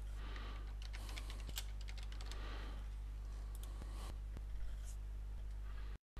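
Typing on a computer keyboard: a quick run of keystrokes over the first couple of seconds, then a few scattered single clicks, over a steady low hum. The sound drops out briefly at the very end.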